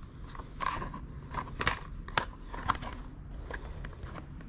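Scattered clicks, taps and creaks of a folding Mickey Mouse book rack being worked by hand, its parts popping up and pulling down.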